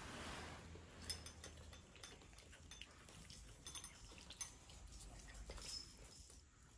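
Faint, irregular small wet clicks and smacks of two cats eating and lapping from their bowls.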